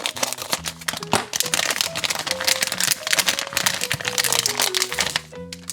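Plastic blind-bag wrapper being crinkled and torn open by hand, a dense rapid crackling that stops shortly before the end, over light background music.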